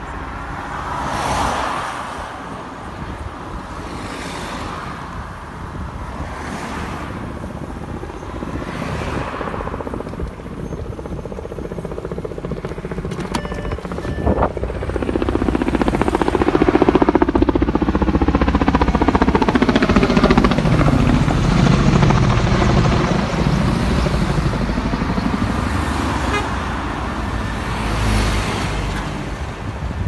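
Several vehicles swish past one after another. About halfway through a firefighting helicopter flies over: its rotor chop grows loud and drops in pitch as it passes.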